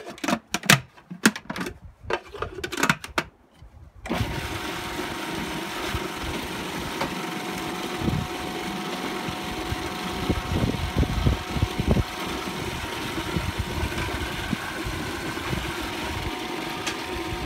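Food processor: a few clicks and knocks as its lid is handled, then about four seconds in the motor starts and runs steadily with an even whine, chopping wild garlic leaves into a paste as olive oil is added through the feed tube.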